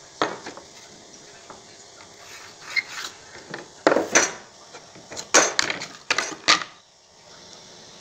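Metal hand tools, a steel carpenter's try square and a tape measure, knocking and clattering against a wooden board: a string of sharp knocks and scrapes, loudest in a cluster from about four to six and a half seconds in.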